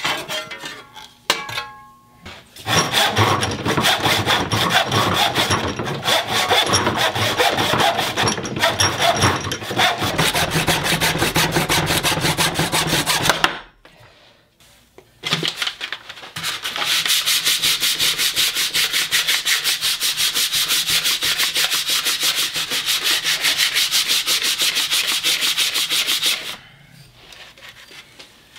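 Hand work on a wooden axe handle: back-and-forth strokes of a hand tool rasping the wood, a pause of a few seconds, then a long run of steady, even sandpaper strokes.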